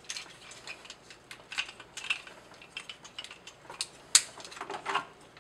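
Hard plastic parts of a transforming robot action figure clicking and clacking irregularly as it is handled and its joints and panels are moved, with one sharp, louder click a little after four seconds in.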